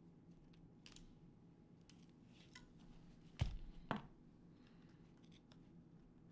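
Small parts and hand tools handled by hand: faint scattered ticks, then two sharp snapping clicks about half a second apart, halfway through.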